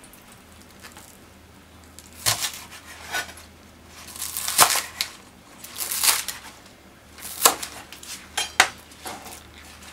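Kitchen knife cutting green onions on a plastic cutting board: separate, unhurried chops knocking on the board, roughly one every second or so.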